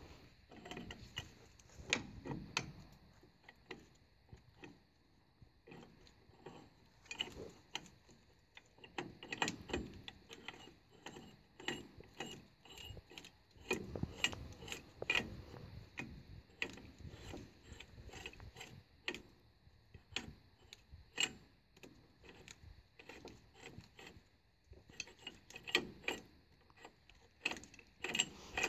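Hand ratchet wrench clicking in irregular runs, with metal clinks of parts on the clutch hub of a New Holland TR96 combine as a piece is run on and tightened.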